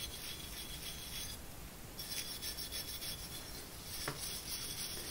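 Abrasive block scrubbing a wet steel plane iron, a faint, steady rub-and-scrape with a short break about a second and a half in. The rust is coming off easily after an overnight Evapo-Rust soak.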